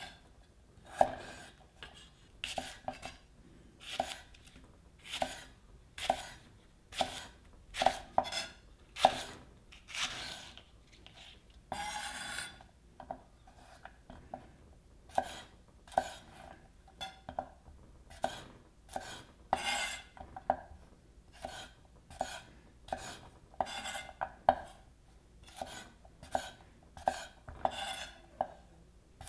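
Kitchen knife cutting vegetables on a ginkgo-wood cutting board: crisp knocks of the blade meeting the board, about one to two a second in uneven groups, first slicing burdock root and later green beans. About twelve seconds in there is a longer rasping sound.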